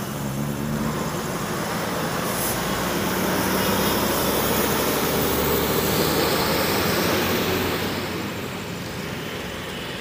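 Mercedes-Benz OH 1626 NG coach's diesel engine running as the bus pulls through a turn and drives away, growing louder midway and fading over the last couple of seconds.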